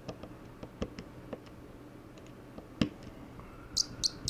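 Scattered light clicks and taps of a screwdriver and small parts on an open laptop's plastic and metal chassis while its motherboard screws are taken out. The sharpest click comes about three seconds in, followed near the end by a quick run of brighter clicks.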